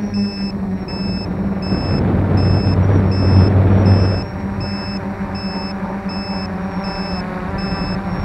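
F450 quadcopter's motors and propellers humming steadily, louder with a rush of air from about two to four seconds in. A high electronic beep repeats about twice a second throughout.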